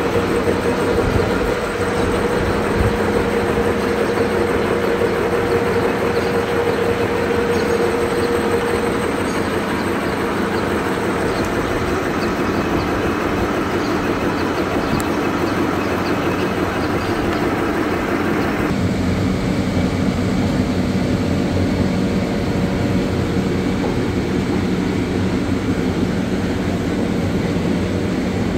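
Vertical milling machine running, its face mill cutting a metal workpiece: a steady hum with dense cutting noise over it. About two-thirds of the way through, the higher hiss drops off suddenly, leaving a lower hum.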